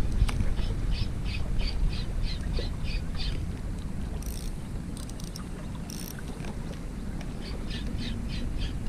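Shimano Stradic FK 1000HG spinning reel cranked to retrieve a lure, giving two runs of soft, even ticks, about four a second: one in the first three seconds, then another near the end after a pause. Under them is a steady low rumble of wind.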